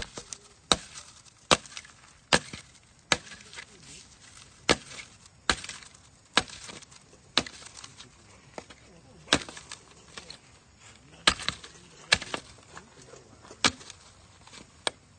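Repeated sharp blows, about one a second at uneven spacing, like wood being chopped.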